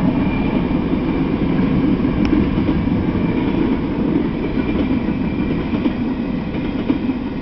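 Freight train of tank cars rolling past at speed: a steady rumble of steel wheels running over the rails.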